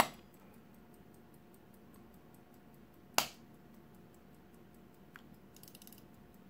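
Two sharp snaps, one at the start and one about three seconds in, as the hinged covers of a 1919 solid gold Rolex pocket watch case are pressed shut. The watch's faint, quick ticking runs underneath.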